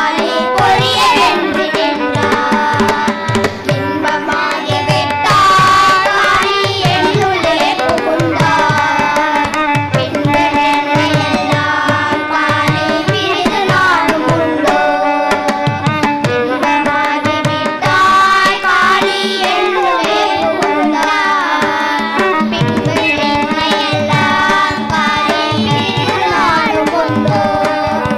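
A group of children singing a devotional song together through microphones, with a hand drum beating a steady rhythm underneath.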